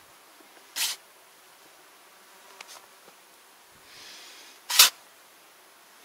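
A shovel cutting into sandy soil twice, about four seconds apart: two short gritty scrapes, the second louder.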